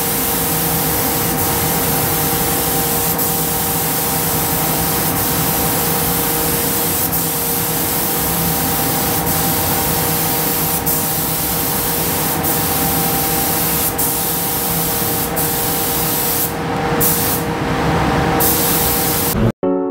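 Gravity-feed spray gun hissing steadily as it sprays paint onto a car body, with a steady hum underneath. The spray cuts out briefly twice near the end.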